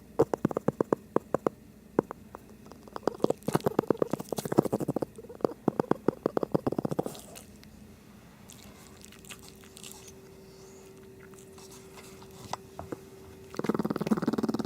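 Shih Tzu snoring: three runs of rapid rattling clicks in the first seven seconds, then a quieter stretch with a faint steady tone, and a louder buzzing snore near the end.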